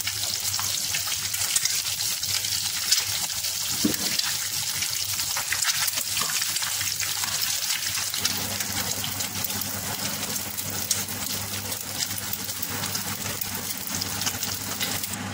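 Eggs frying in hot oil in a nonstick pan, sizzling and crackling steadily, with a steady low hum underneath.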